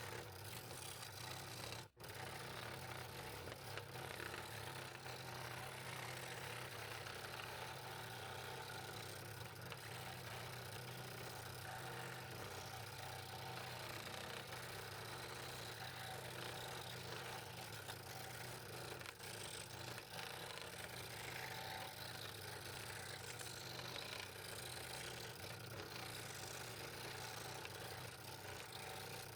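Scroll saw running steadily with a mechanical hum and rattle, broken off briefly about two seconds in.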